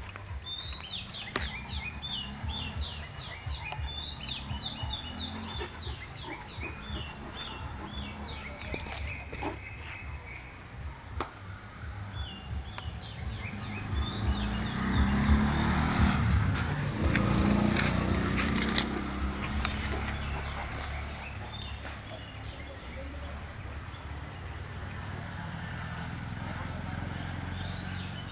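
Small birds chirping over and over in the background. About halfway through there is a louder stretch of low, rough sound lasting several seconds.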